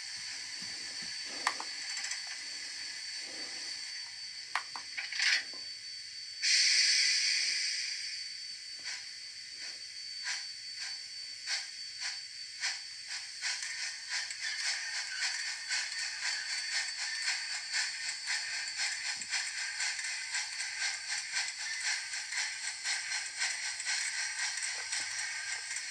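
Large-scale model steam locomotive with a loud burst of steam hiss about six seconds in that fades away, then a rhythmic chuffing that starts slow and speeds up as the engine gets under way, over a faint steady high whine.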